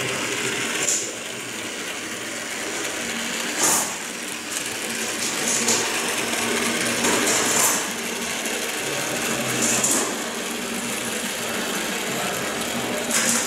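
Model locomotive's small electric motor and wheels running along the track: a steady whirring rattle, with a louder rattle every two seconds or so.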